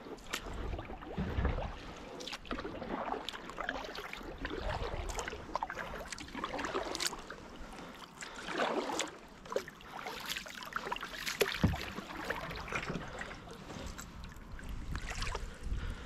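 Kayak paddle dipping and splashing through calm water, stroke after stroke, with water trickling off the blade.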